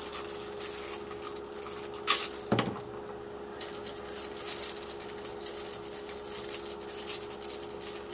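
Plastic packaging of a sterile syringe crinkling and rustling as gloved hands handle it and pull it open, with a sharp crackle about two seconds in and a short knock just after. A steady hum runs underneath.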